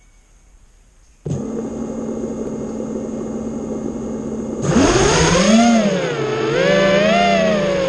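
FPV racing drone's brushless motors start spinning at a steady idle hum about a second in. About four and a half seconds in they throttle up for takeoff: a louder whine that rises in pitch, then rises and falls as the drone flies.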